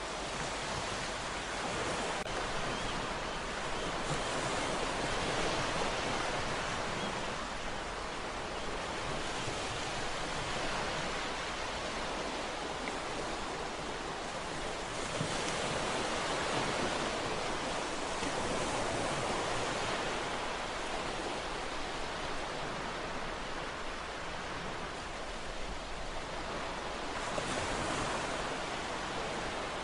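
Ocean waves breaking and washing on a shore, a continuous rushing noise that swells and subsides every few seconds.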